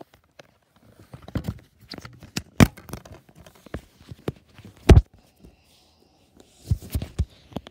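Plastic DVD cases knocking and clattering as they are rummaged through in a plastic storage bin, mixed with fingers rubbing and bumping against the phone's microphone. The sound comes as irregular knocks and clicks; the loudest are two sharp knocks about two and a half and five seconds in, with a quick cluster near the end.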